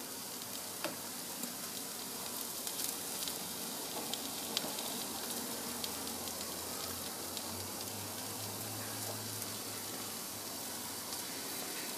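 Beef burger patties and potato wedges sizzling steadily on a gas grill, with a few faint ticks.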